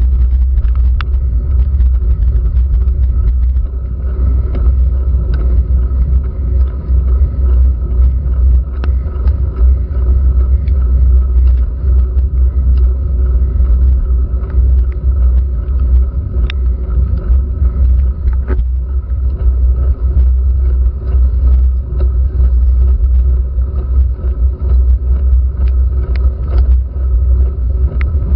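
Steady, loud low rumble of road vibration and wind buffeting a handlebar-mounted GoPro Hero3 in its waterproof housing as a bicycle climbs a wet road slowly, with scattered light ticks of rain striking the housing.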